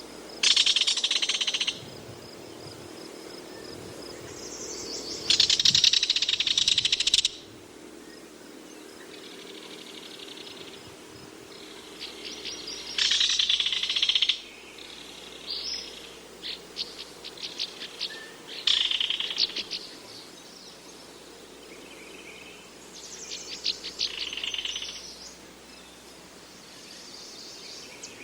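Belted kingfisher giving its dry, rattling call: loud rattles of rapid clicks lasting a second or two, repeated about half a dozen times, with shorter, broken rattles between them.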